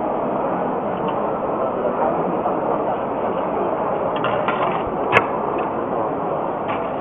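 CNC wire bending machine at work, its bending head clicking a few times and giving one sharp metallic snap about five seconds in, over a steady background of noise.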